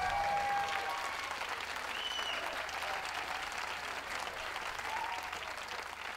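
Audience clapping, with a steady patter that fades out near the end.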